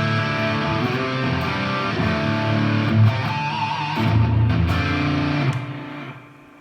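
Electric guitar music: held chords ring over a low bass, with a wavering high note about halfway through, then the sound dies away near the end.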